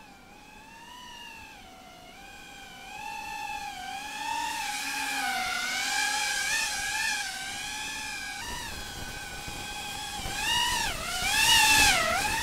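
GEPRC CineLog35 FPV cinewhoop drone in flight, its motors and propellers making a buzzing whine whose pitch rises and falls with the throttle. It gets louder from a few seconds in and is loudest near the end, where a rushing hiss joins the whine.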